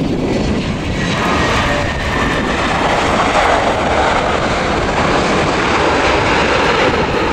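Airbus A320-214's CFM56 jet engines in reverse thrust just after touchdown: a loud rushing jet noise that swells about a second in and then holds steady as the airliner rolls out.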